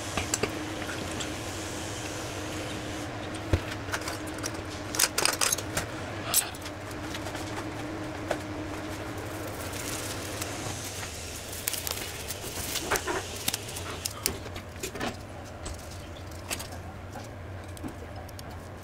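Handling noises at a workbench: scattered clicks and knocks as the impact wrench's metal and plastic parts are picked up and set down, and the rustle of nitrile gloves being pulled on around the middle, over a steady low hum.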